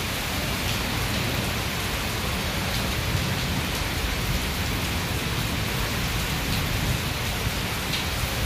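Torrential monsoon rain pouring down, a steady, even hiss with no let-up.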